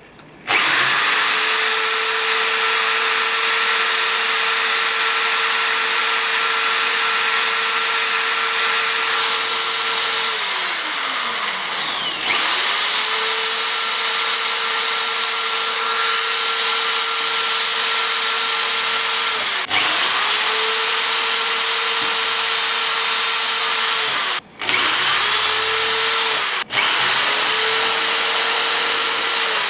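Electric drill running with a steady motor whine as its bit bores into a smartphone's glass screen and metal body. The motor winds down with a falling pitch about ten seconds in and again near twenty seconds, starting back up each time, and breaks off sharply for a moment twice near the end.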